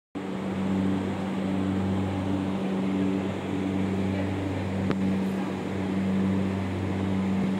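Steady low hum with a strong fixed pitch and a fainter overtone, with a single sharp click about five seconds in.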